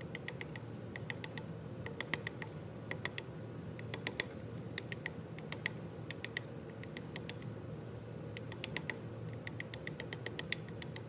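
Light metal-on-metal taps from a punch being tapped very lightly against a CV joint's cage and inner race to ease them back into place. The taps come in quick clusters of three to five, a new cluster about every second.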